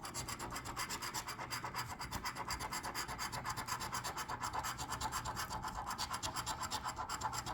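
Scratch-off lottery ticket being scratched: rapid, even scraping strokes, several a second, as the latex coating is rubbed off the play area.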